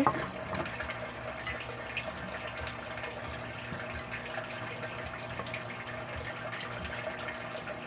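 Steady rush of running water, even and unbroken, with a faint low hum underneath.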